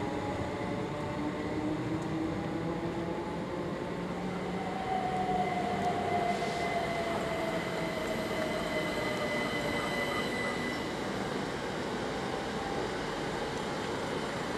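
Trains moving through the station, with a motor whine of several tones that glide in pitch. One tone falls slowly over several seconds, as a train slows or passes, over a steady rumble of running noise.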